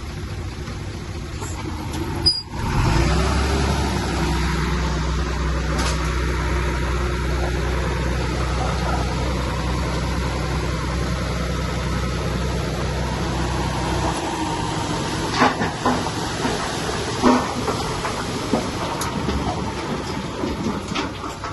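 Heavy diesel earthmoving machine running under load with a steady low drone. The drone drops away about two-thirds of the way through, leaving rougher running noise with a few sharp metallic knocks.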